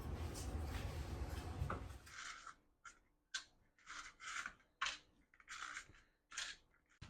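Paper cupcake liners holding set honey joys (cornflake, honey and butter cakes) scraping and crinkling as they are lifted one by one out of a cupcake tray. There are about eight short papery scrapes about half a second to a second apart. A steady low rumble fills the first couple of seconds.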